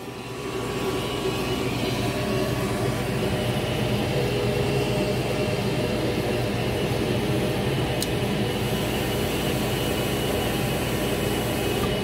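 A gas furnace's draft inducer motor starts up and runs with a steady whooshing hum as the furnace makes its third ignition attempt, with a single click about eight seconds in. There is no ignition because the hot surface igniter has failed open and never glows.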